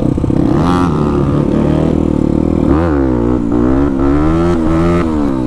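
Dirt bike engine running, its pitch climbing about a second in and then rising and falling several times as the throttle is opened and closed.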